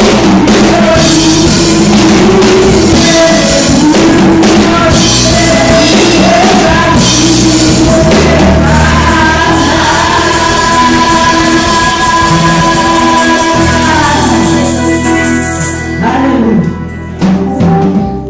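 Live gospel praise band: a woman's lead vocal over drum kit and electric keyboard, with backing singers. The drum beat drops away about seven seconds in, leaving long held notes, and the music thins out and dips near the end.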